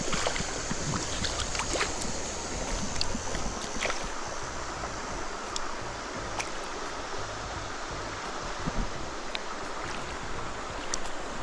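Stream water running in a steady rush, with wind buffeting the microphone and a few faint clicks here and there.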